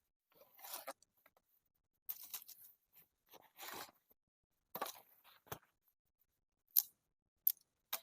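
Irregular handling noises: short spells of rustling and scraping, then two sharp clicks near the end.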